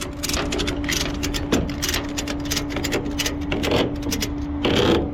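Ratchet tie-down strap being cranked tight to secure a car for towing: a run of sharp ratcheting clicks over a steady low hum.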